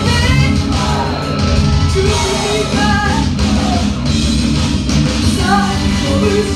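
Loud rock music with a singer's amplified voice over it, sung and shouted into a handheld microphone and played through a small club's PA.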